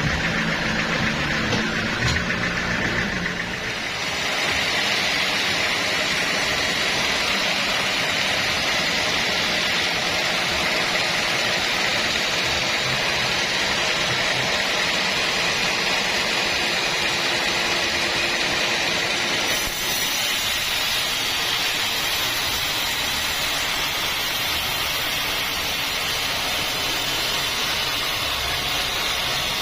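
Sawmill band saw running and cutting through an acacia log: a loud, steady mechanical rush. Low steady tones in the first few seconds give way to a fuller, hissier cutting noise about four seconds in.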